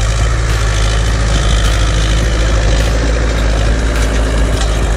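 Zetor 6911 tractor's four-cylinder diesel engine running steadily under load as it pulls a disc harrow through ploughed soil.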